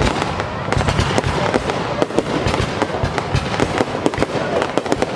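Aerial fireworks display going off: a dense, continuous barrage of sharp bangs in quick succession, many overlapping.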